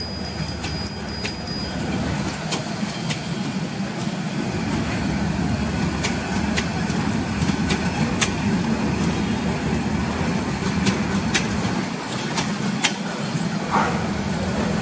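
Bangladesh Railway intercity passenger coaches rolling past on the track as the train pulls out. A steady low rumble runs under frequent sharp clicks and clanks.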